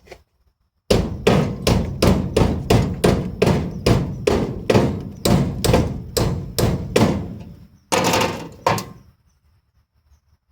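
Hammer blows on the steel around a 1956 Chevy pickup's door-hinge bolt hole: a quick, even series of about twenty strikes, roughly three a second, then a short pause and two last blows.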